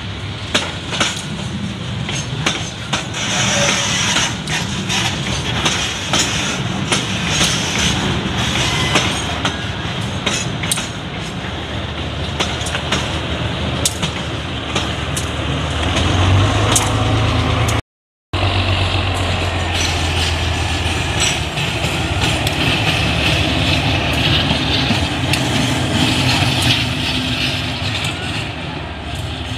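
BB 303 diesel-hydraulic shunting locomotive running as it moves tank wagons, with the wagons' steel wheels clicking over rail joints. After a short break, the locomotive runs alone with a steady low engine hum.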